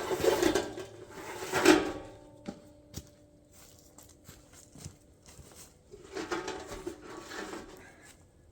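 Knocking and scraping on steel, with a metallic ring lingering for a few seconds after a loud knock about two seconds in, then a few sharp clicks and a second spell of scraping near the end.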